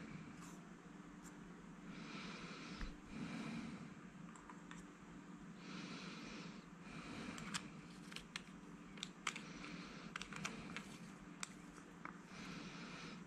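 Light clicks and taps of a metal bicycle-flashlight body and an 18650 cell being handled and fitted together, thickest in the second half, with a person's nose breathing between them.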